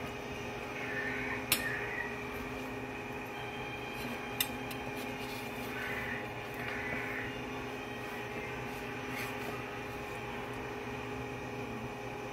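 Steady hum of a kitchen appliance's motor or fan running, with two sharp clicks, one about a second and a half in and another about four seconds in.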